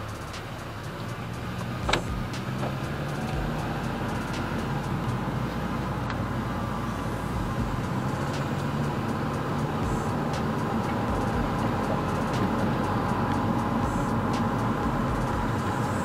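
A car's engine and tyre road noise heard from inside the cabin while driving at about 40 km/h, with a steady hum that slowly grows louder. One sharp click about two seconds in.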